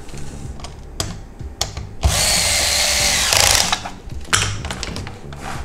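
Electric screwdriver whirring for about a second and a half, driving a screw into the plastic instrument cluster housing; its tone changes shortly before it stops. A few sharp clicks of handling come before and after.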